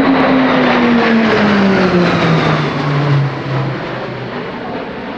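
Formation of six Pilatus PC-21 turboprop trainers passing overhead: a loud propeller drone whose pitch falls steadily over about three seconds as they go by, then fades.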